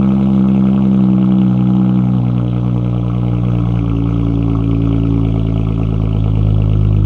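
2019 Dodge Challenger GT's 3.6-litre V6 idling through an SLP Loudmouth resonator exhaust with the muffler and resonators deleted, giving a loud, steady idle. The idle drops slightly in pitch about two seconds in.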